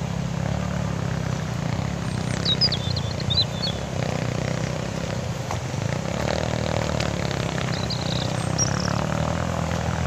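Steady low rumble, with a few short high bird chirps about two and a half seconds in and again near the end.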